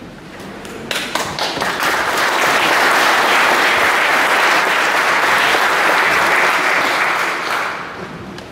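Audience applauding: a few first claps about a second in swell into steady applause, which fades away near the end.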